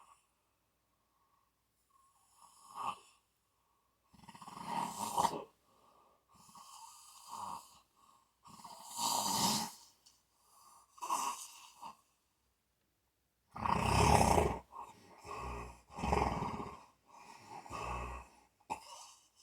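Snoring: a run of irregular, noisy breaths of uneven length and loudness, the loudest about two-thirds of the way through.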